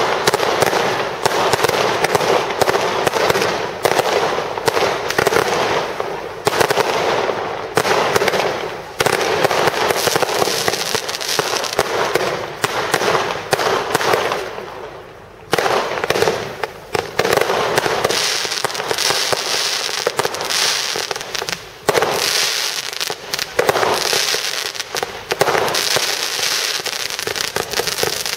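Fireworks display firing: rapid, nearly continuous pops and crackling as many shots launch and burst in quick succession. There is a brief lull about halfway through, then the firing picks up again just as densely.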